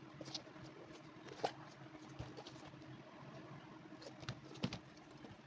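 A few light, scattered taps and clicks over a faint, steady low hum.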